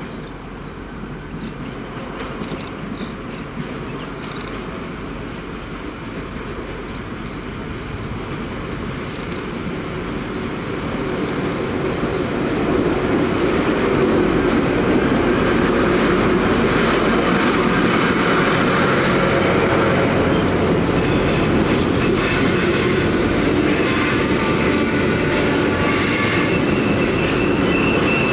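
Loram rail grinder train rolling past on steel rails, its running noise growing louder over the first dozen seconds as it approaches and then holding steady as it draws alongside. A thin high wheel squeal comes in over the second half.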